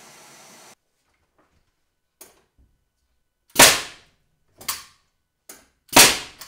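A steady vacuum cleaner noise cuts off suddenly under a second in. Then come sharp shots from a nail gun driving nails into timber: five in all, the loudest at about three and a half and six seconds in.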